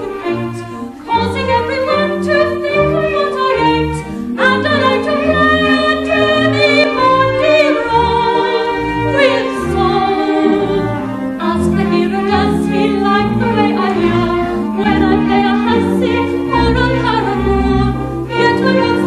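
Women singing a musical-theatre number together with a small pit orchestra, the voices and instruments running on without a break.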